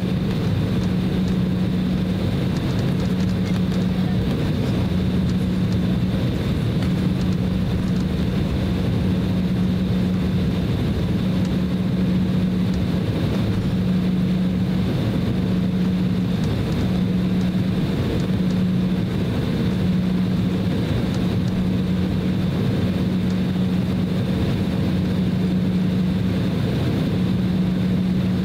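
Cabin noise of an Embraer E190 airliner taxiing: a steady low hum from its GE CF34-10E turbofans at taxi power, with a strong low tone that wavers slowly and a faint high whine.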